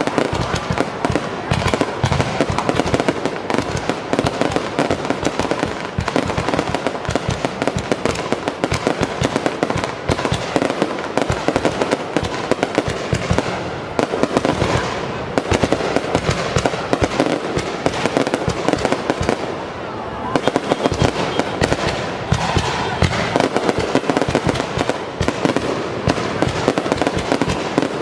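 Fireworks display: a dense, continuous barrage of rapid bangs and crackles with no pause.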